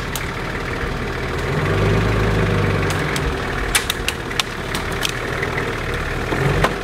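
A four-wheel-drive vehicle's engine running steadily as it climbs a track, its low note swelling for a moment about two seconds in. Several sharp knocks and rattles come in the second half.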